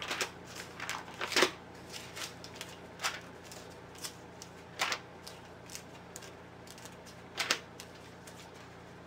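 Pages of a Bible being leafed through by hand: a few crisp page flips, the strongest about a second and a half, five and seven and a half seconds in, with faint paper rustling between.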